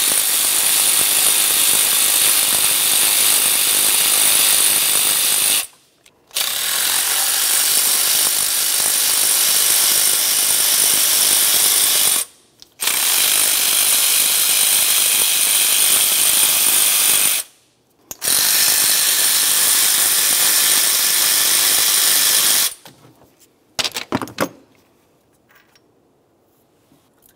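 Power ratchet spinning out the throttle body's four 13 mm mounting bolts: four steady runs of about five seconds each with short pauses between, followed by a few light clicks near the end.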